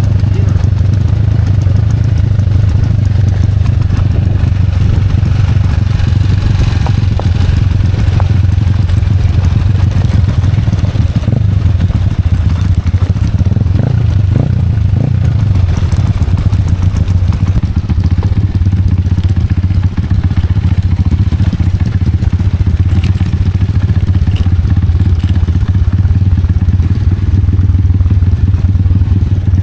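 Small motorcycle engine running steadily, heard from on the bike as it rides over a rough dirt track, with occasional knocks and rattles from the bumps.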